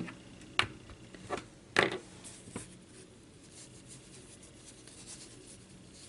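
Hands handling muslin fabric strips wrapped around a small ring: a few light clicks and rustles in the first couple of seconds, then faint soft fabric handling.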